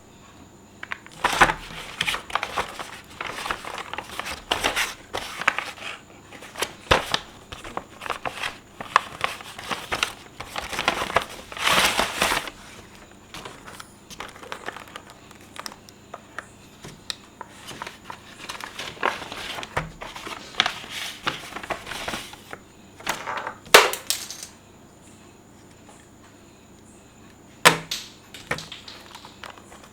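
Plastic and card packaging of a Hot Wheels die-cast car pack crinkled and torn open by hand: irregular bursts of crackling with a few sharper snaps, dying down for a while about two thirds through.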